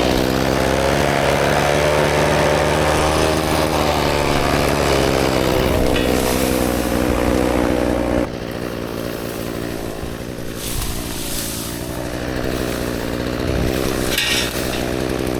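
Two-stroke chainsaw engine running at high revs, then dropping to a lower speed about eight seconds in and running on unevenly.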